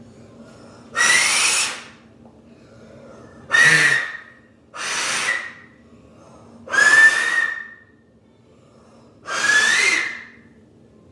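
Two-finger whistle blown five times, about two seconds apart: each blast is mostly rushing air with a thin whistle note in it, sometimes sliding up in pitch.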